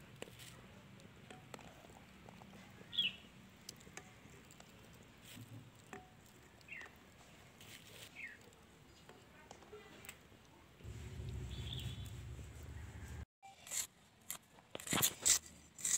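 Quiet outdoor background with a few short, falling chirps and a low rumble lasting about two seconds. Near the end come several sharp, crisp snaps: an onion being sliced by hand against a bonti, a curved floor-mounted cutting blade.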